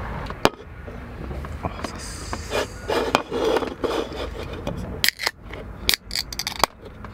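Small aluminium beer cans being opened: a cluster of sharp pull-tab cracks with short hisses in the second half, among light clicks of metal on the table.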